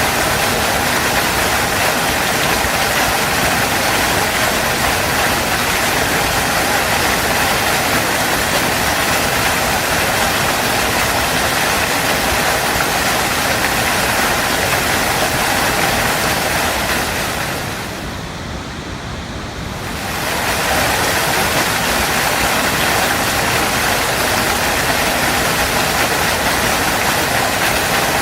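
Waterfall rushing in a steady, dense roar of falling water. The sound briefly dips and dulls about eighteen seconds in, then comes back to full strength two seconds later.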